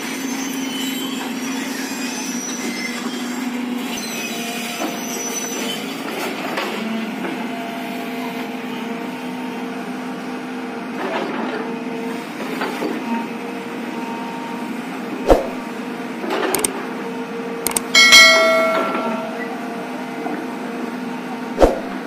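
JCB JS215 tracked excavator's diesel engine running steadily under digging load. Several sharp clanks come in the second half as the steel bucket strikes rock. The loudest is a ringing metallic clang about three-quarters of the way through.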